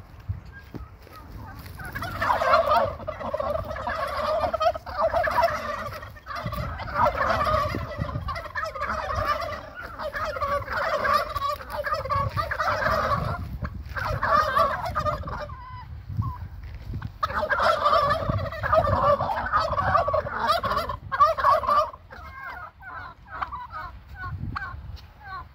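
A flock of domestic turkeys gobbling, many birds at once in long overlapping stretches with short lulls, thinning to a few scattered calls near the end.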